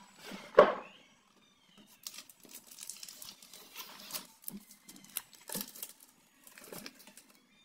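New school books and a plastic file rustling, crinkling and knocking together as they are rummaged through inside a cloth school bag. There is one sharp thump about half a second in, then a run of short crinkles and taps.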